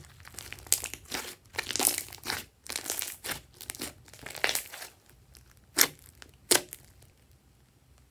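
Glossy slime being squeezed and pressed by hand, giving a run of crackling pops, then two sharper separate pops a little past halfway.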